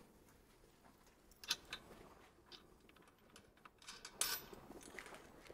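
Faint, sparse metallic clicks and taps of bolts and washers being fitted by hand into a motorcycle fairing neck bracket, the loudest click about four seconds in.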